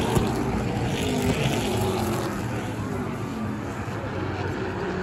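NASCAR Pinty's Series stock cars' V8 engines running around the oval, the engine notes falling in pitch as cars go by and pull away.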